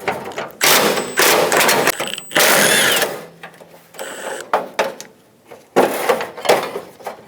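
A 10mm socket on a ratchet runs off the nuts holding the door-handle guard: a dense stretch of mechanical ratcheting noise lasting about three seconds, then scattered light clicks and knocks as parts are handled.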